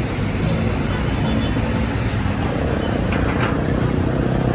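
Steady low rumble of running engines.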